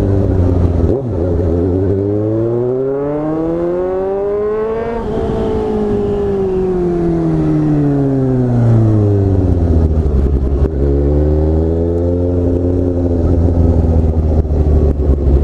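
Motorcycle engine running through a loud aftermarket exhaust that isn't a 4-into-1 system. Its pitch climbs steadily for about five seconds, then falls slowly, and it settles into a low steady note near the end.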